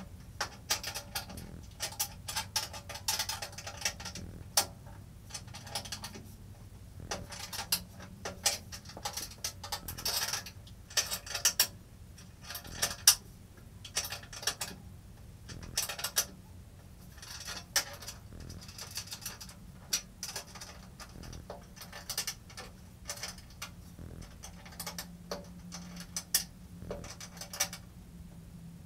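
Hand tools and metal parts of a table saw being handled during assembly: irregular metallic clicks, clinks and rattles, with one sharper knock about halfway through, over a faint low hum.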